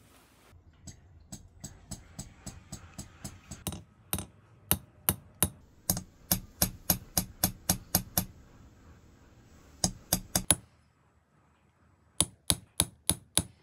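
Small hammer tapping a steel chisel to cut engraved characters into a steel knife blade resting on a steel block: sharp ringing metallic taps, light at first, then louder at about three a second. The taps stop twice for a moment before a quicker run near the end.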